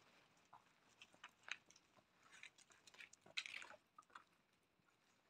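A puppy chewing and gnawing on a small piece of wood: faint, irregular clicks and crunches, the loudest a little past three seconds in.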